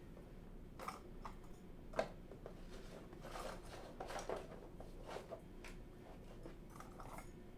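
Light handling noise of small objects: scattered soft clicks and scraping rustles, with one sharper click about two seconds in.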